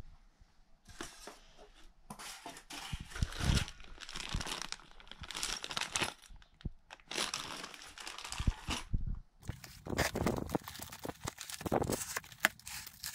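Packaging being handled: a clear plastic bag of bolts crinkling and rustling in the hands in repeated bursts, then cardboard box flaps being pulled and scraped with crackly clicks near the end.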